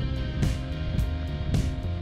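Background music with held notes over a steady beat, just under two beats a second.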